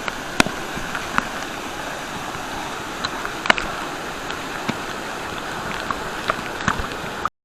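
Waterfall and its stream: steady rushing of falling water, with a few short sharp ticks of splashing scattered through it. It cuts off abruptly near the end.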